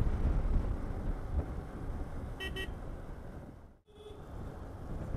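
Steady low rumble of a motorcycle ride, engine and wind noise, with two quick horn toots about two and a half seconds in. The sound drops out for an instant just before four seconds, and one more short toot follows.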